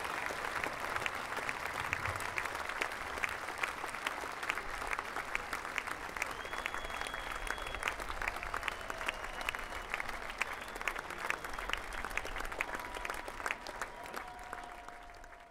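Crowd applauding, dense steady clapping with a few long, high, steady tones over it. It fades out near the end.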